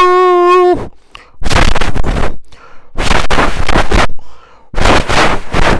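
A man imitating an arriving train with his voice: a short held horn-like hoot, then three long, loud, breathy hisses like a steam engine's puffs.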